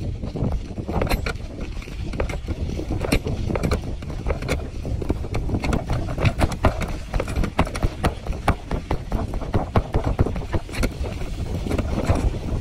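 Bicycle jolting over a bumpy dirt track: dense, irregular rattling and knocking from the bike and its wire mesh basket, over low rumbling wind noise on the microphone.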